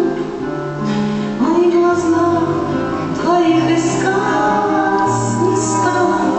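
A slow song with a woman's voice holding long, wavering notes over an instrumental backing whose bass changes every second or so.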